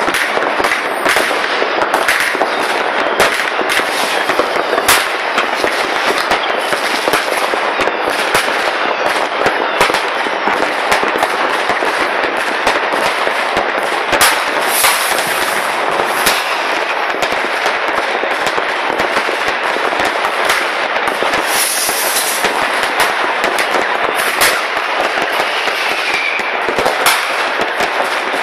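Fireworks and firecrackers going off all over a town: a continuous crackling din with many sharp bangs and pops overlapping on top.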